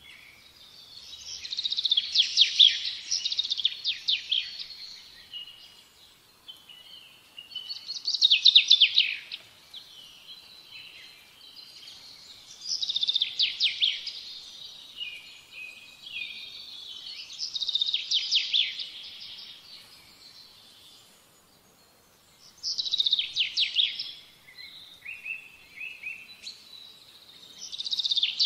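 A songbird singing: phrases of rapid trilled notes, each about two seconds long, repeating every four to five seconds.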